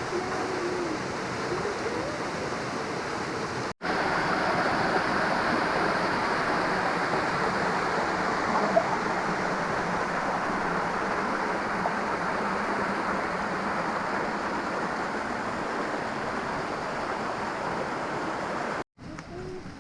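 Waterfall rushing steadily into a creek pool. The rush drops out for an instant about four seconds in and comes back louder and fuller, then breaks off again near the end.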